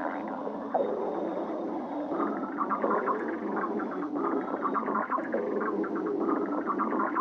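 Stomach growling: continuous gurgling and rumbling with bubbly crackles, getting busier about two seconds in.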